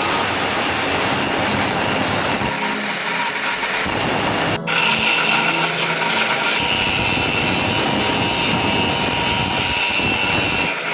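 Power tool grinding or cutting under load: a harsh, steady noise with a brief break about four and a half seconds in.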